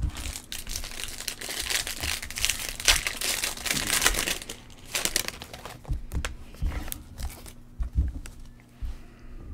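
Foil wrappers of Bowman baseball card packs crinkling and rustling in the hands, with a stack of trading cards being flicked through. Busiest in the first half, quieter near the end.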